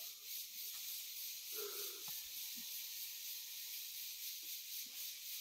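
A steady high-pitched hiss, pulsing slightly, with a brief faint low sound about a second and a half in.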